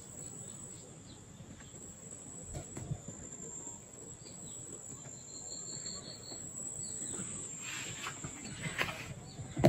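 A steady, high-pitched insect drone, with a short chirping trill about five seconds in. Over the last two seconds comes louder rustling and footfalls, as someone walks through the maize and brushes the leaves.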